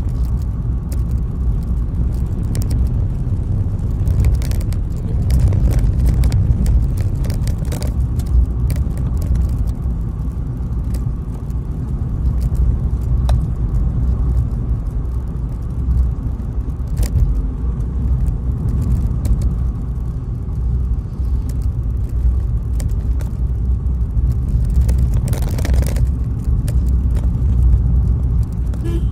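Steady low engine and road rumble heard inside the cabin of a moving vehicle, with scattered light clicks and knocks, and a brief louder rush of noise near the end.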